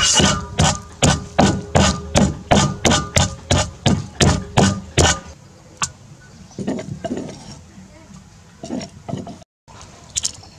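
Pestle pounding garlic cloves in a mortar, about three even strikes a second, stopping about five seconds in. After that a spoon taps and scrapes softly against a metal pan.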